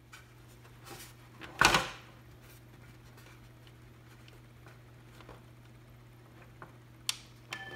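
Handling noises on the opened plastic clock case: a few light clicks, then one loud knock about two seconds in and another sharp click near the end, over a faint steady hum. Right at the end the clock's electronic bell melody starts to play.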